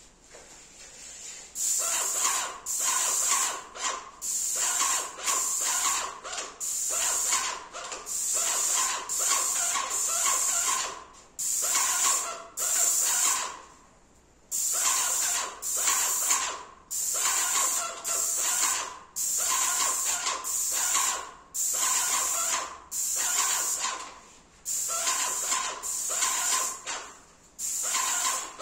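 Airless paint spray gun hissing in repeated bursts about a second long with short gaps, as the trigger is pulled and released while water-based paint is sprayed onto a ceiling for a second coat.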